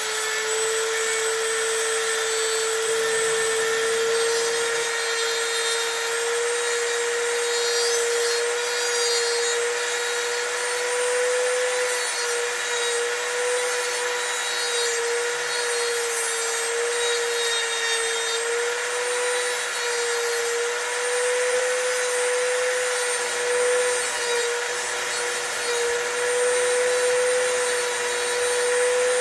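Dremel rotary tool with a cutoff wheel grinding the bitting into a Schlage SC4 key blank: a steady high whine that wavers slightly in pitch as the wheel bites, over a scratchy grinding noise.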